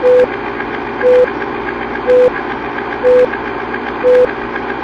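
Film-countdown sound effect: five short mid-pitched beeps, about one a second, over the steady clatter of a running film projector.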